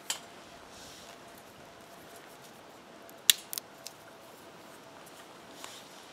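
Small damp spruce sticks dropped into a steel wood-burning camp stove, clicking against the metal: one sharp click at the start and a quick cluster of three or four about three seconds in, the first of them the loudest.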